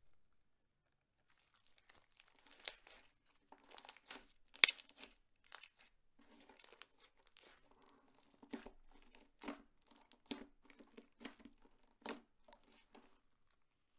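Clear slime and plastic piping bags being squeezed and worked by hand: an irregular run of crinkling, crackling clicks and small pops, the loudest pop about four and a half seconds in.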